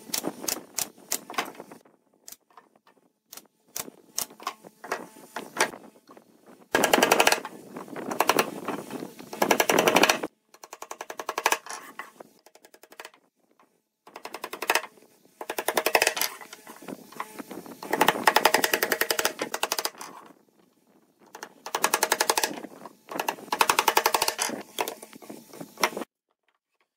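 Pine boxes being nailed together: single sharp shots from a pneumatic brad nailer, then long runs of very rapid taps and clicks broken by short pauses, ending abruptly about a second before the end.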